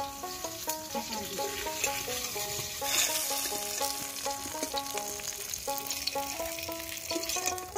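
Hot oil sizzling in a wok as fried ash gourd fritters are turned and lifted out with a metal spatula, the hiss swelling about three seconds in. A plucked-string background tune plays over it.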